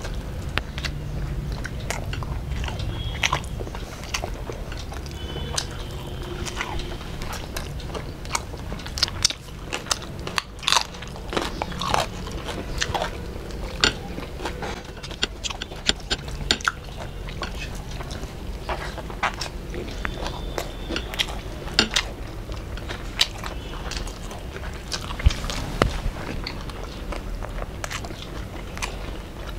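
Chewing and biting of rice and fried food eaten by hand, with many short, irregular wet mouth clicks and occasional crunches.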